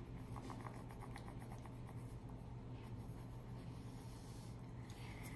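Faint scratching of a wax crayon coloring on a paper coloring roll.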